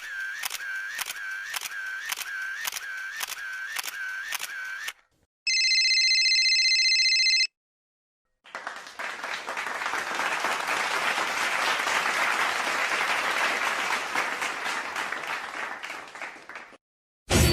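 Three sound effects in a row: about ten sharp clicks, two a second, for some five seconds; then a steady buzzer tone for about two seconds; then a long spell of dense clapping like applause that fades out near the end.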